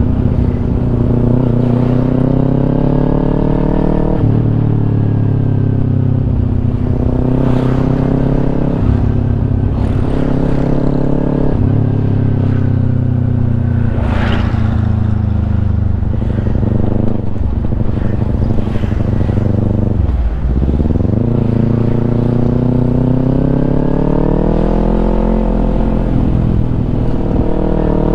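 Kawasaki Ninja 250's parallel-twin engine through a Yoshimura aftermarket exhaust, being ridden: the revs climb and fall back repeatedly as it pulls through the gears, with a sharp drop about two-thirds of the way through before it climbs again.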